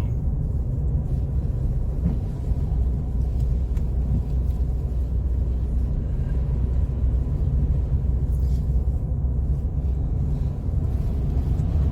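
Car driving on a snow-covered road, heard from inside the cabin: a steady low rumble of tyre and engine noise.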